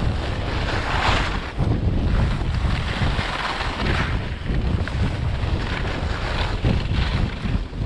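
Wind buffeting the microphone while skiing downhill, a steady low rumble, with the hiss of skis sliding and carving over packed snow rising and falling in waves with the turns.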